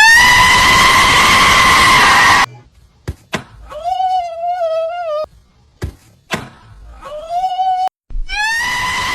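Chicken sound effects in a series of loud screaming calls. A long scream rises and holds for about two and a half seconds, a wavering call follows, then a short rising call, and another long scream starts near the end.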